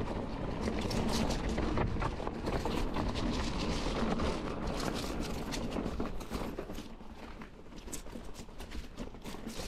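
Mountain bike rolling over a leaf-covered dirt singletrack: continuous tyre and trail noise with frequent clicks and rattles from the bike over bumps, easing a little near the end.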